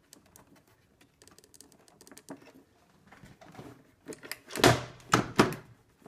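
Faint plastic clicks and rustles of a vacuum tube being pushed back onto a fitting inside an opened FoodSaver vacuum sealer. About four and a half seconds in, three loud plastic clunks follow in quick succession as the sealer's lid is shut and latched.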